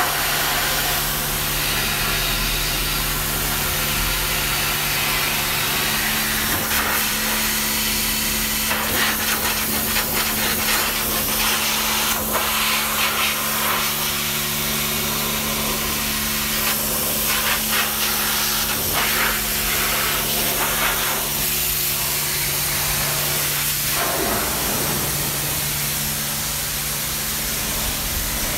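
High-pressure washer jet spraying water onto a car's wheel, tyre and body panels: a loud, steady hiss of water over a steady low hum.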